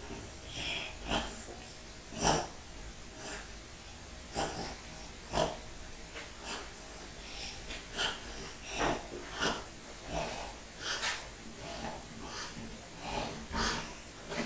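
Irregular light clicks, knocks and rustles of a laundry detergent container being handled while a dose is measured out.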